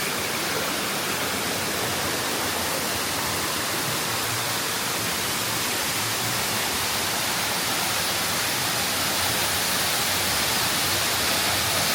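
Waterfall close by: a steady rush of falling water.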